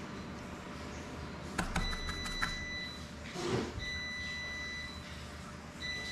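An electronic beeper sounding three steady, high beeps of about a second each, roughly two seconds apart, starting about two seconds in. A few light clicks come just before the first beep.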